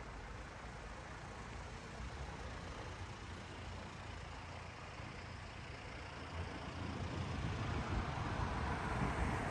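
City street traffic noise: road vehicles running on the street, growing louder in the last few seconds as a vehicle draws near.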